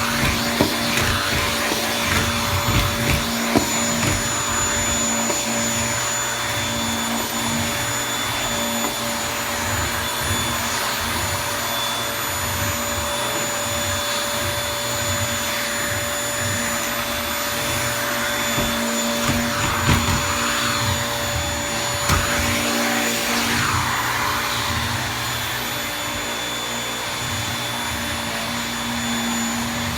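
Toshiba VC-PB9 vacuum cleaner running steadily, with a few sharp clicks in the first few seconds.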